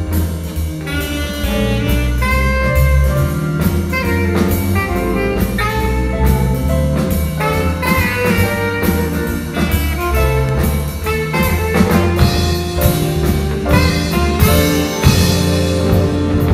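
Live instrumental jazz band: saxophone playing the melody over drum kit, electric bass, guitar and keyboard.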